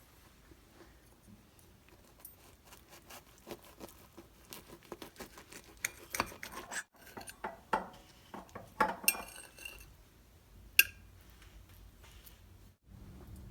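Cutlery clinking and scraping against a plate: a run of irregular small clicks and scrapes, with a ringing clink about nine seconds in and a sharp click shortly after.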